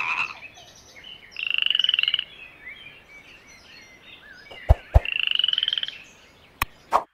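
Green tree frog calling twice, each call a fast series of pulses lasting under a second, with faint chirping calls in between. A few sharp clicks sound near the end.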